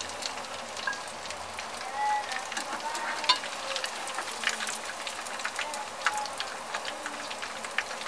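Mutton chops sizzling in hot mustard oil in a kadhai: a steady frying hiss full of crackling pops. A slotted metal skimmer scrapes and clinks against the pan as the golden-brown chops are lifted out.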